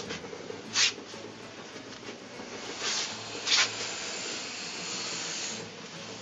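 Large python hissing in short, sharp bursts, about four in the first four seconds, then a longer, softer hiss.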